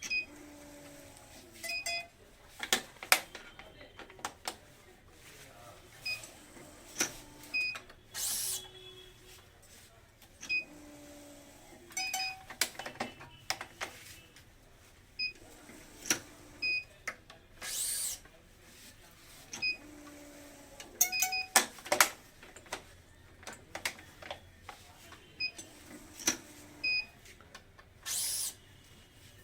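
Badminton racket stringing machine working through repeated tensioning cycles: a short low whir, sharp clicks and short high beeps, repeating about every four to five seconds, with an occasional louder hiss-like burst.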